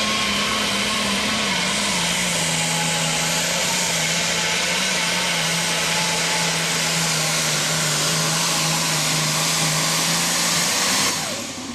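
Turbocharged International Harvester super stock pulling tractor's diesel engine running flat out as it drags the weight sled, a loud, steady full-power howl with a strong high-pitched hiss over the engine note. The engine note dips slightly a couple of seconds in, then holds, and drops away sharply near the end as the pull finishes.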